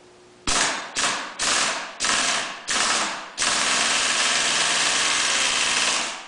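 Pneumatic impact wrench hammering in the centre bolt of a flywheel puller to pull an engine's flywheel. It runs in five short bursts, then in one long run of nearly three seconds that stops near the end.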